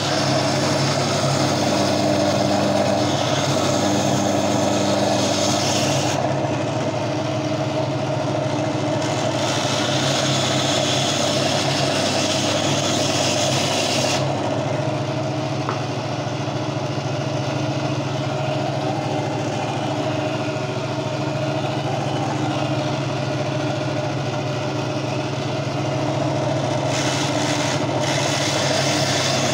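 Gryphon diamond bandsaw running with a steady motor hum, while its diamond blade grinds through the stony skeleton of a Lobophyllia coral. The cutting adds a higher hiss in the first six seconds, again from about nine to fourteen seconds in, and near the end.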